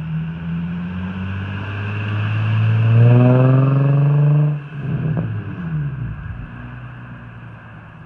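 Infiniti G35 sedan's V6 engine accelerating away, its note climbing in pitch and getting louder for a couple of seconds, then dropping suddenly about four and a half seconds in and fading as the car drives off.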